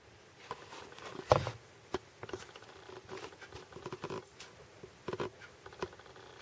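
Faint, irregular clicks and light rustling, with a sharper knock about a second in and a few more clicks near the end.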